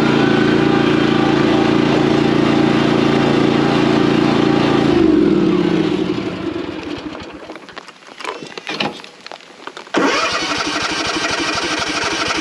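A lawn mower's engine running steadily, then winding down and stalling about five seconds in. A few seconds later the starter cranks it in one long try that does not catch: the engine has died and won't restart.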